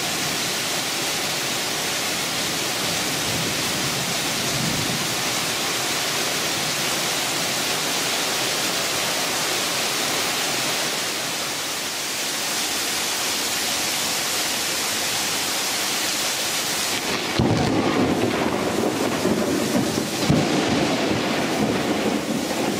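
Heavy rain hissing steadily. About seventeen seconds in, thunder breaks in as a louder, lower, uneven rumble that carries on to the end.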